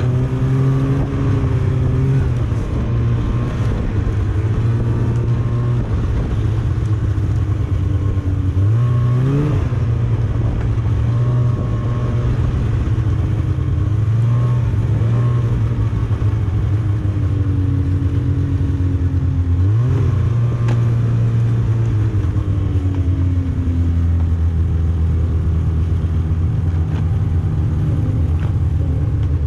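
Snowmobile engine running steadily under way, with its pitch rising sharply as the throttle opens about nine seconds in and again near twenty seconds, easing down in between.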